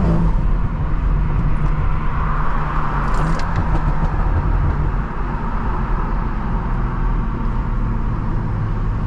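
BMW M340i's turbocharged inline-six, fitted with a catless downpipe, running steadily while cruising, with road noise; the engine note steps down slightly about halfway through.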